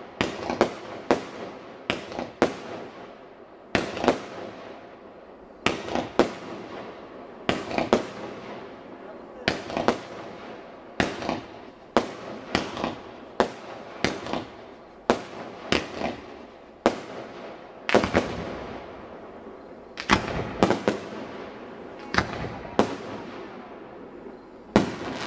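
Aerial fireworks bursting overhead: a fast, uneven run of sharp bangs, often two or three in quick succession, with short pauses between the volleys.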